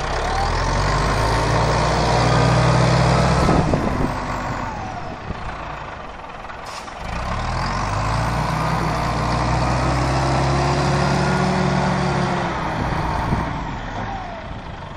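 1981 Caterpillar 518 skidder's diesel engine pulling hard as the machine drives. It climbs in pitch and runs hard for a few seconds, eases off about a third of the way in, then climbs again and holds before easing near the end.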